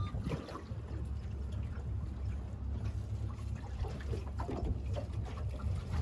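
Boat underway on a river: water splashing and slapping against the hull over a steady low rumble.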